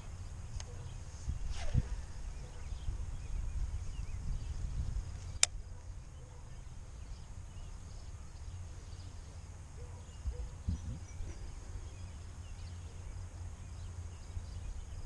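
Wind rumbling on the microphone, with faint bird chirps and a single sharp click about five seconds in.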